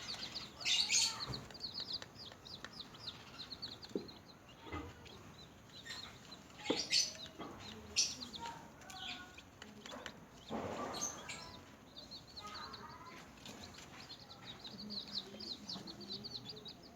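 Newly hatched chicks peeping: rapid runs of short, high chirps, thickest at the start and again near the end, with several sharp knocks and rustles scattered through the middle.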